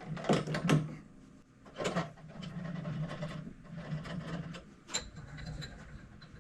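Metal clunks, clatter and scraping as a steel precision block is pushed and tapped against a workpiece to square it up. The loudest knocks come at the start, about two seconds in and about five seconds in, over a low hum.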